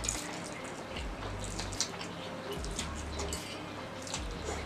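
Close-up wet mouth sounds of someone eating spicy instant noodles: slurping and chewing, with many short, sharp smacks and clicks.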